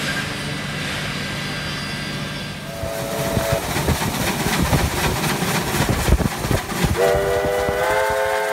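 A steady hum gives way to a train's clattering rumble, with a short two-note toot about three seconds in. Near the end a steam locomotive whistle starts, a held chord of several notes that lifts slightly in pitch a moment later.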